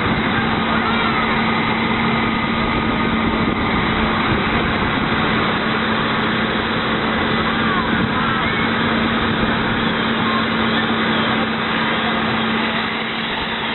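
Fire engine running steadily while pumping water to the hose lines: a constant engine drone with a steady hum.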